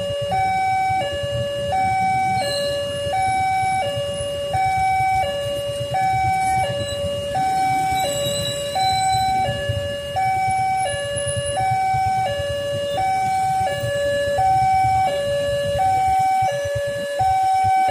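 Railway level-crossing warning alarm sounding, an electronic two-tone signal alternating evenly between a higher and a lower tone, about one high-low pair every 1.2 seconds. It signals that a train is approaching and the barriers are down. A low rumble runs underneath and drops away near the end.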